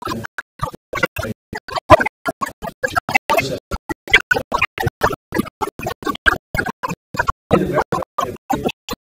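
A man's voice through a microphone, broken up by audio dropouts into rapid stuttering fragments with dead gaps between them, so that no words come through.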